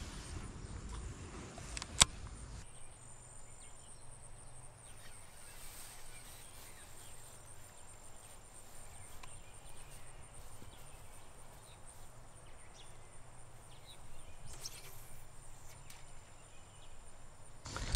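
Faint rural outdoor background at a pond with a thin, steady high whine underneath. One sharp click sounds about two seconds in.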